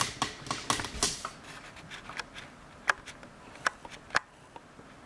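A quick flurry of light clicks and rustling, followed by three sharp, isolated clicks spaced out over the next few seconds.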